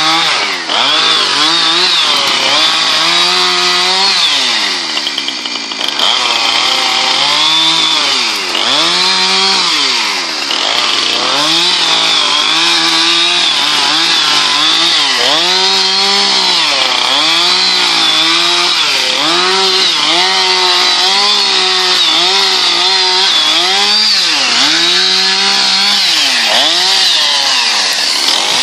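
Chainsaw running hard and cutting wood, its engine pitch rising and dropping over and over as the chain bites into the fallen tree's trunk.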